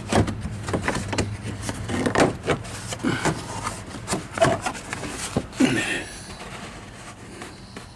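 Plastic wheel-well liner being pulled back and flexed by hand: irregular rubbing, scraping and creaking of plastic, with a few short squeaks. It quietens over the last couple of seconds.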